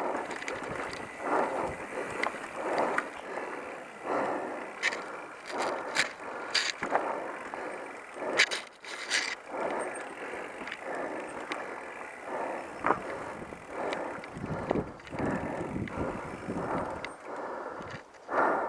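Scott Ransom mountain bike rolling over a rough dirt trail: tyre noise and the rattle of the bike, surging and easing about every second and a half at first, with a few sharp clicks or knocks midway.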